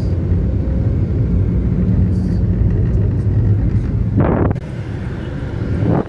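Car interior noise while driving: a steady low engine and road rumble, with a brief rush of noise about four seconds in, after which it runs quieter.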